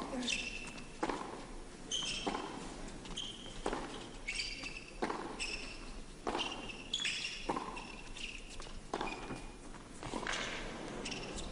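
Tennis rally on an indoor court: the ball struck by rackets back and forth, sharp hits about once a second, with short high squeaks of players' shoes on the court between them.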